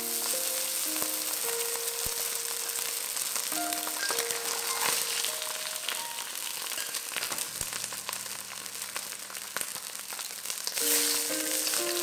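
Boneless chicken thigh frying skin side down in hot oil in a wok: a steady sizzle that swells louder near the end.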